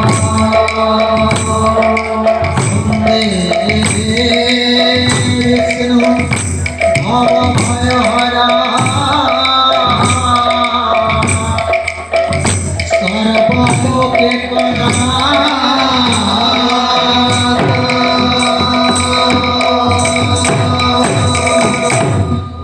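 Sankirtan ensemble playing: two-headed barrel drums (mrudanga/khol) beat a fast, driving rhythm under the steady ringing of small hand cymbals. The music cuts off right at the end.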